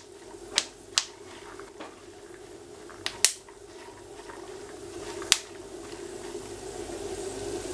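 Peanuts frying in hot oil in a pan, sizzling softly with a handful of sharp pops scattered through, about five in all. The popping shows the peanuts are frying through, the cue to turn the flame down. A steady low hum runs underneath.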